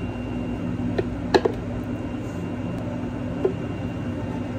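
A spoon tapping and scraping against a tall glass as watermelon granita is spooned in, giving a few light clicks: a pair just over a second in and one more later. A steady low machine hum runs underneath.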